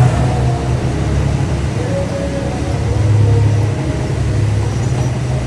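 Off-road side-by-side (UTV) engine running steadily while driving on a rough track, a continuous low drone that swells a little about three seconds in.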